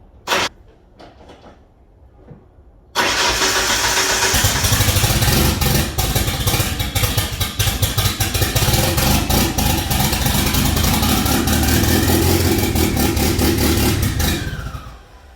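Ford Mustang SVO's 2.3-litre turbocharged four-cylinder engine starting up about three seconds in and running for about eleven seconds before it is shut off and dies away. It is the first start on a new Summit ignition box replacing a faulty MSD box, and it runs, confirming the old box was the cause of the no-start. A single short knock comes just before.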